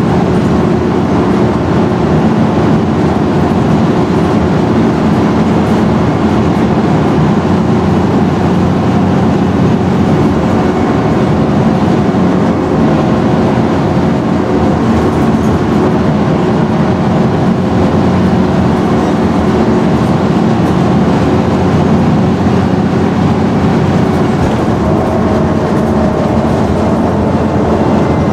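Scania N113DRB double-decker bus's diesel engine running steadily under way, with a constant mechanical drone and hum.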